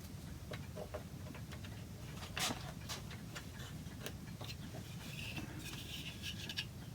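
Faint, scattered light ticks and small knocks of wooden chair parts being handled: a loose tenon and the back rail being fitted, with a soft scrape near the end.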